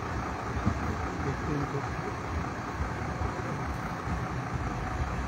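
Steady low rumble of an idling vehicle engine, with faint, indistinct voices.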